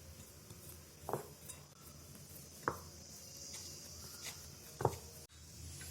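Three light knocks of kitchenware being handled, about a second and a half apart, like a bowl or lid set down on a counter.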